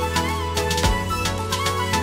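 Background electronic music with a steady drum beat over a heavy bass line.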